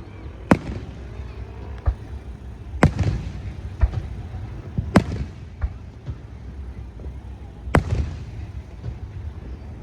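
Aerial fireworks shells bursting overhead: sharp booms every second or two, each trailing off in a rumbling echo, with four loud bursts among smaller ones.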